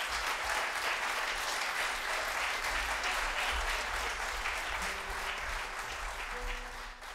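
Theatre audience applauding at the end of a song, a dense steady clapping that thins out near the end.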